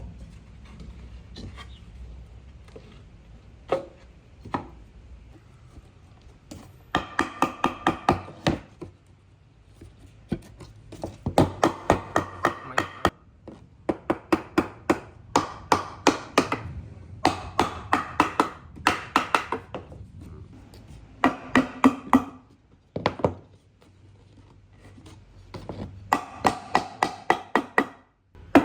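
A woodworking power tool run in short bursts of one to two seconds, each a fast rattle of about seven strikes a second with a ringing tone. There are about eight bursts with pauses between them.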